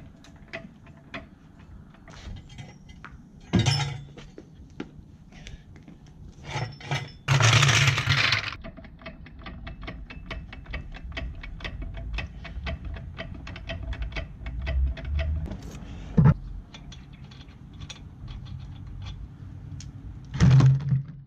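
A car being jacked up: a long run of quick metallic clicks from the jack, with scrapes, a sharp knock and a few louder clanking rustles as the axle stand is set in place.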